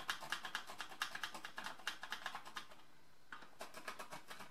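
Pencil scribbling quick back-and-forth strokes on drywall, marking screw positions through a wall mount's holes. The strokes come about eight a second, in two runs with a short break about two-thirds of the way through.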